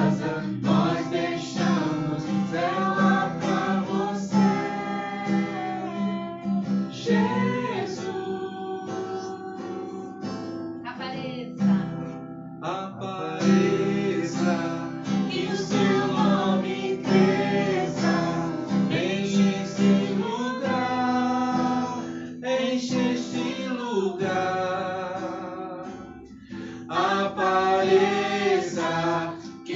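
Female voice singing a worship song over strummed acoustic guitar.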